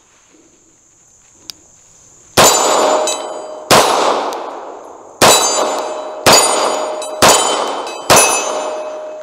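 Six 9mm shots from a CZ 75 SP-01 Competition pistol, starting about two seconds in and coming about one to one and a half seconds apart. Each shot is loud and sharp, with a ringing tail that dies away over about a second.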